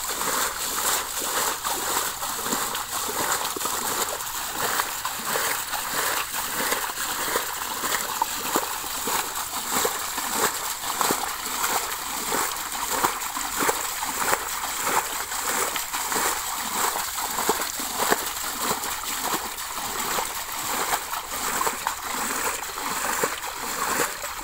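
Metal pot scooping and flinging muddy water in a shallow pond, short splashes repeating in an even rhythm of roughly two a second: water being bailed out by hand to get at the fish.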